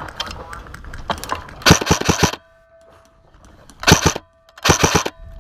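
Airsoft electric gun firing three short full-auto bursts of rapid sharp cracks, the first and longest about a second and a half in, the other two close together near the end. Scattered single clicks come before them.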